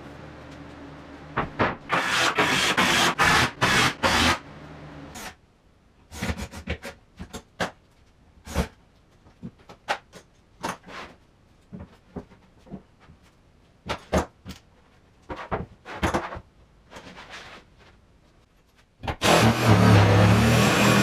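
Knocks and clatter of plywood cabinet parts being handled and set down, loud at first, then sparse. About two seconds before the end a cordless jigsaw starts cutting a round hole through a plywood top, a loud steady buzz.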